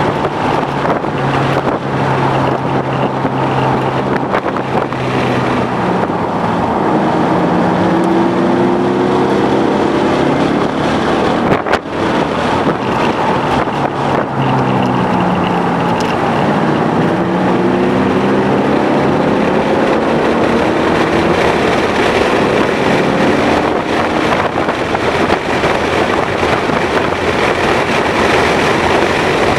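2011 Mustang GT's V8 engine pulling hard on track, its note climbing through the revs twice and dropping back between, over a heavy rush of wind and road noise.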